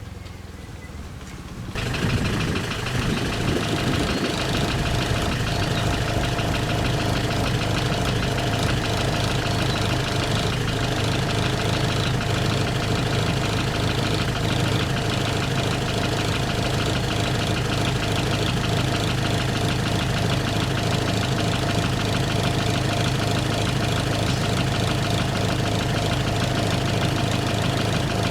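Excavator's diesel engine running steadily at idle, coming in suddenly about two seconds in.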